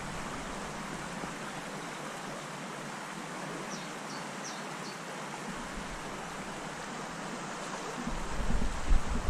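Small stream flowing with a steady hiss of running water. A few faint high chirps come through around the middle, and a low rumble rises near the end.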